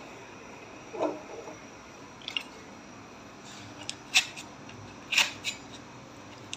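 Foil-lined paper wrapper being unfolded from a block of butter: a few short, separate crinkles and rustles, with a duller knock about a second in.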